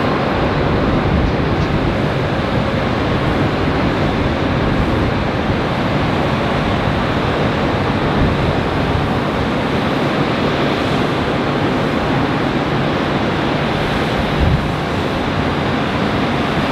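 A Boeing 747 freighter's four jet engines at takeoff power through the takeoff roll and lift-off: a steady, even rush of noise heard from a distance.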